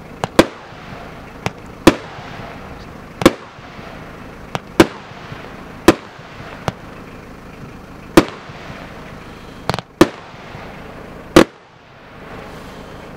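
Martarello SIOUX F2 fireworks cakebox firing a string of sharp bangs, irregularly spaced at roughly one a second, some in quick pairs. The bangs stop about a second and a half before the end.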